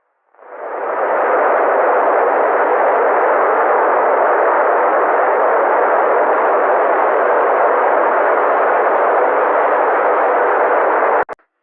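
Steady, filtered noise like a hiss, played in reverse as an edited sound effect: it swells in over about a second, holds level, then cuts off abruptly near the end.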